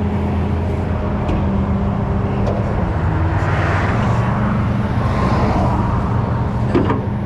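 A vehicle engine idling steadily beside a busy road, with traffic passing twice in the middle and a few sharp clicks near the end.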